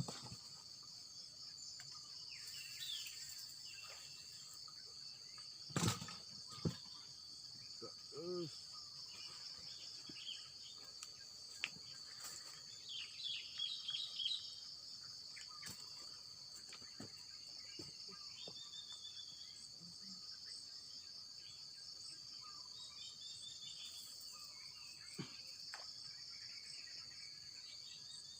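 Steady, shrill insect chorus of crickets or cicadas, with short bird chirps now and then and a few sharp knocks, the loudest about six seconds in.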